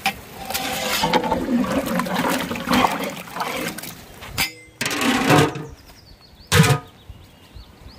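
Sounds from a large aluminium cooking pot: liquid bubbling and sloshing for the first few seconds, then a short, loud metallic clank about six and a half seconds in as the metal lid is set on.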